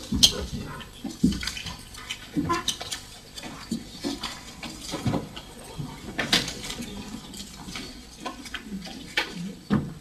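Meeting-room handling noise: scattered knocks, clicks and paper rustling at irregular intervals, with the sharpest click about a quarter of a second in.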